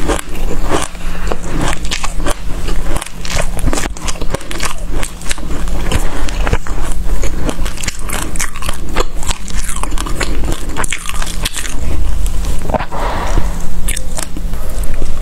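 Close-up crunching and chewing of a mouthful of dry black seeds: a dense, rapid crackle of tiny seeds breaking between the teeth.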